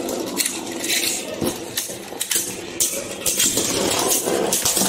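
Beyblade spinning tops whirring and scraping across a plastic chair seat, with repeated irregular clacks as they collide.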